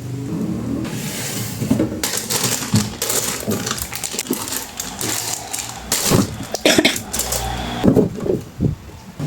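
Irregular knocks, clatter and rustling of household items being handled, typical of containers and shelves being moved while a refrigerator is cleaned.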